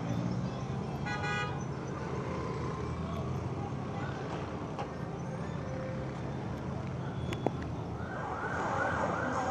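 Low, steady rumble of idling vehicles with a short toot about a second in. Near the end a police car siren starts a fast yelp, rising and falling about three times a second.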